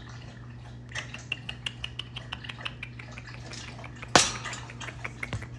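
Wire cage bars clinking and rattling as a baby spider monkey climbs on them: a quick run of light metallic ticks, then one sharp clank about four seconds in, over a steady low hum.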